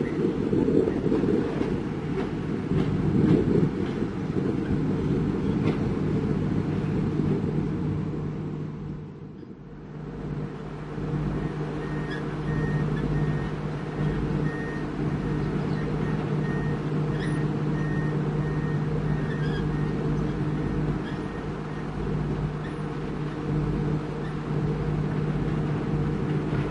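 Diesel engines of heavy construction machinery running steadily, dipping briefly about a third of the way in. Partway through, a high beep repeats at a steady pace for several seconds, like a reversing alarm.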